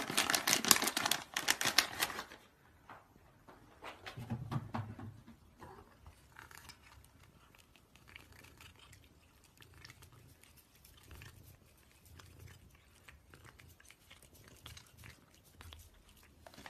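A cat chewing and crunching a small dry treat taken from a person's fingers: faint, irregular crunches. It starts with about two seconds of loud scuffling noise.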